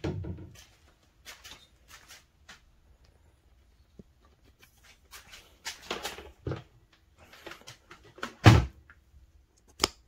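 Scattered knocks, rustles and thumps of handling and walking as things are picked up and carried through a garage, with one heavy thump about eight and a half seconds in and a sharp click near the end.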